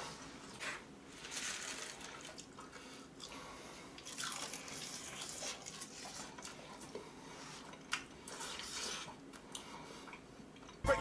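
Quiet, intermittent wet eating sounds: chewing and slurping of curry broth and rice, with a plastic spoon moving in a paper cup.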